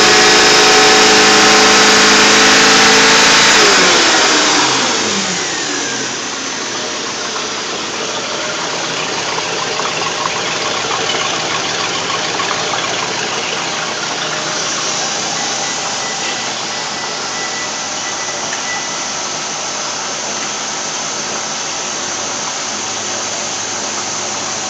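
MerCruiser 5.0L MPI fuel-injected marine V8 running, held at raised revs for the first few seconds. It then drops back over about two seconds, falling in pitch, and settles to a steady idle.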